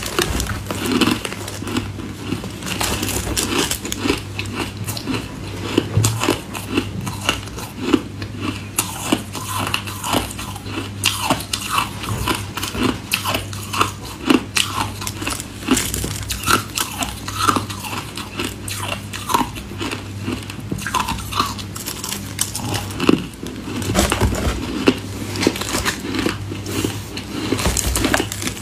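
Close-up biting and chewing of clumps of snowy, frozen ice: a dense run of crisp crunches, a few every second.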